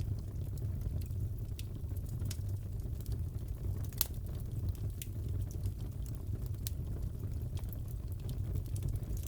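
Crackling fireplace fire: a steady low rumble of flames with irregular pops and crackles, one sharper pop about four seconds in.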